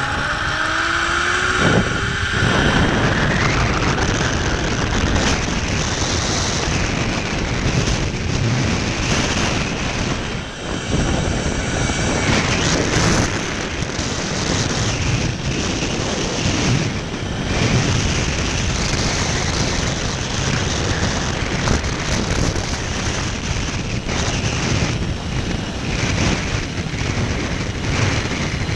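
Wind rushing hard over the microphone, with the zipline trolley running along the steel cable at speed. There is a rising whine in the first few seconds as the trolley picks up speed after launch.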